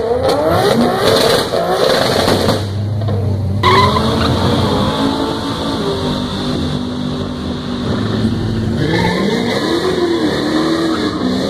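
Drag-racing cars at the start line: an engine revving up hard in rising steps as a car launches, then, after a break, car engines running under load with tyre squeal from a burnout, and an engine revving up and down near the end.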